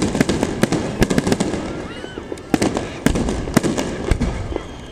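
Aerial firework shells bursting in quick succession: a continuous string of sharp bangs and crackles over a low rumble, with several louder booms.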